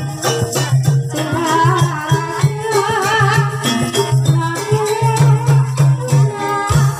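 Live Javanese gamelan music accompanying an ebeg horse dance: a wavering melody over steady struck notes and a pulsing low beat.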